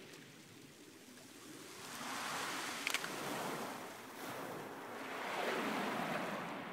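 Small waves breaking and washing over a pebble beach, swelling in two surges, about two seconds in and again about five seconds in. A brief sharp click sounds near the middle of the first surge.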